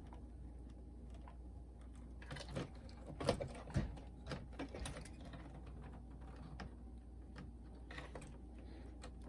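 Scattered small clicks and taps of a screwdriver working fasteners loose on the plastic case of a Pioneer SK-550 boombox, over a faint steady low hum.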